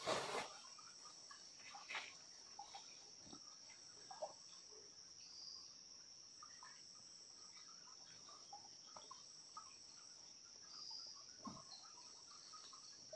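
Steady high-pitched chorus of rainforest insects, with soft rustles and small clicks of clothing being handled, loudest right at the start and again about two seconds in.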